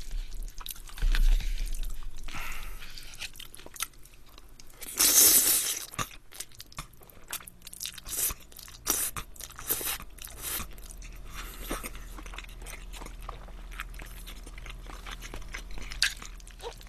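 A person eating spaghetti close to a microphone: a loud slurp of noodles about five seconds in, then wet chewing and many small clicks of a metal fork against a plastic bowl.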